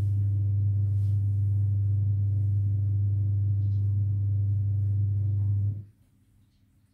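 A steady low hum: one deep unchanging tone with faint overtones, which cuts off abruptly about six seconds in.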